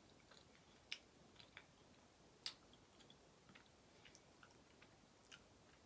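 Quiet chewing of a mouthful of cheesecake: a few soft, sparse mouth clicks, the clearest about a second in and again about two and a half seconds in.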